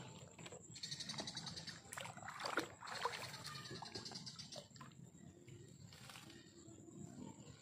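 Faint night insects: a pulsing high trill about a second in over a steady thin high whine, with a few sharp rustles and knocks between two and three seconds in.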